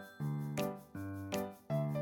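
Background music: a light, bouncy keyboard tune with a new note or chord about every half second.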